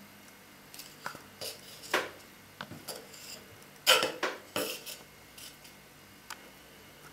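Short scrapes and light clicks of a thin tongue piece being worked into the slit of a whittled wooden snake's head and the carved stick being handled. The loudest is a cluster of scrapes about four seconds in, followed by one small click near the end.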